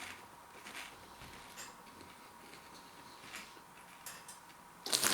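Faint crunching of baked pea snacks being chewed: a few soft crackles about a second apart. Near the end, a snack packet starts being crinkled loudly.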